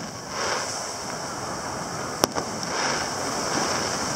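Distant aerial firework shell bursting with one sharp bang a little over two seconds in, over a steady wash of ocean surf.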